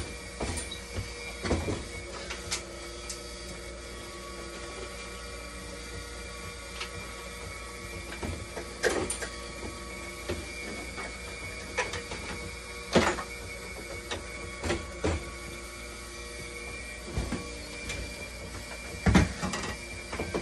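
Dialysis machine running with a steady mechanical hum and a thin high whine. Scattered sharp clicks and knocks come from its tubing and panels being handled, the loudest about two-thirds of the way through and another near the end.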